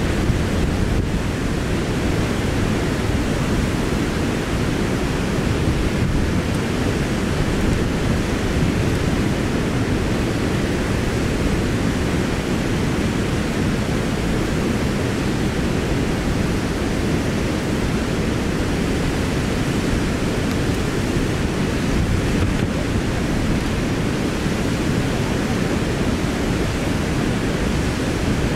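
Steady, even rushing of the Big Sioux River's waterfalls and rapids, strongest in the low range.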